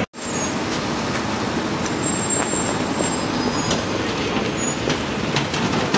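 Rear-loading garbage truck's engine running steadily, mixed with city street traffic.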